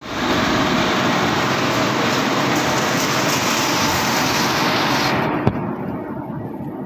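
Plastic agglomerator's rotor with its cutting blades spinning in the drum as HD fishing-net scrap is fed in. Loud, steady machine noise that drops off sharply a little after five seconds in, with a single click shortly after.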